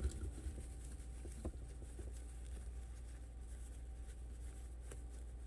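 Wired ribbon rustling and crinkling in the fingers as the bow's loops are twisted back out, with a few faint clicks, over a steady low hum.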